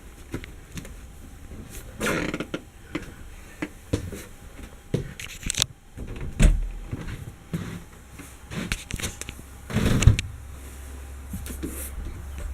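Irregular knocks, taps and scrapes, with louder rustling bursts about two seconds in and about ten seconds in, over a low steady hum.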